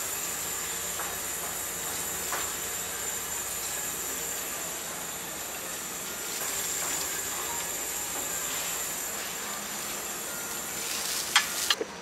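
Steady hissing room noise with a faint high whine, broken by a few light clicks and clinks of serving tongs against plates; the two loudest clinks come near the end.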